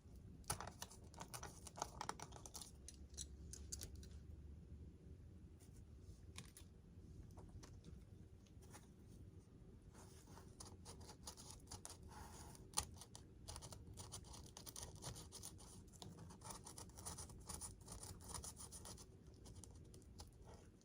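Faint, irregular scratching and small clicks of a hobby knife blade cutting and scraping into the foam wing of a model airplane, carving out a channel for wiring, with one sharper click about thirteen seconds in.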